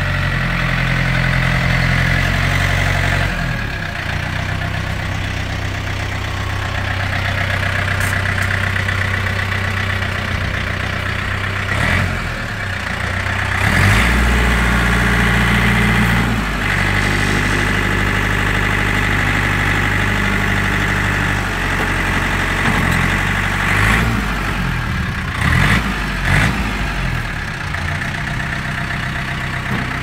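John Deere 4600 compact tractor's three-cylinder diesel engine running as the tractor drives and works its front loader, the engine note shifting up and down several times.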